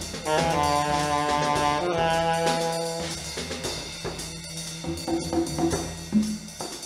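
Live jazz trio: alto saxophone playing long held notes over upright bass and drums. After about three seconds the saxophone's held notes fade, leaving bass and scattered drum hits.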